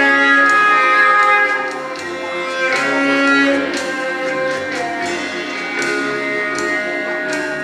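Instrumental music of held, string-like notes over a soft, repeating low note.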